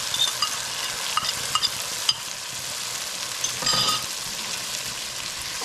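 Curry spice paste sizzling as it fries with browned onions in hot oil in a pot, stirred with a spoon that clicks and scrapes against the pot now and then.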